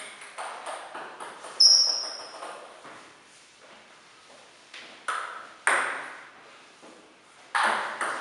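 Celluloid table tennis ball bouncing and being struck by bats on the table, sharp separate clicks that echo in the hall. A few scattered clicks come early, one with a short high ring. After a quiet gap a serve and rally start about five seconds in, with harder hits near the end.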